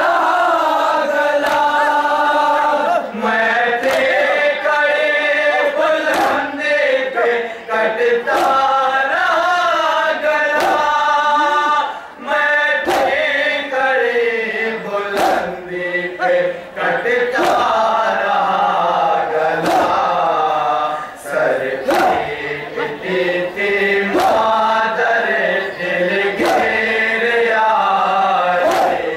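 A group of men chanting a nauha, a Shia mourning lament, over a microphone. Sharp strokes about once a second keep time, the beat of matam (chest-beating) that goes with the recitation.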